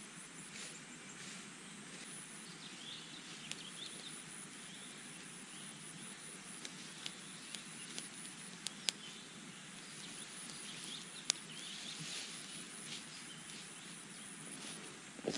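Quiet rural field ambience with faint bird chirps and a few scattered sharp snaps or clicks.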